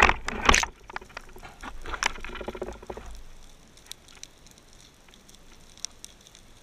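Underwater water rush and bubbling against the camera as a diver kicks down into the dive, loud with sharp splashy strokes over the first three seconds. It then settles to a faint underwater hiss with scattered sharp clicks.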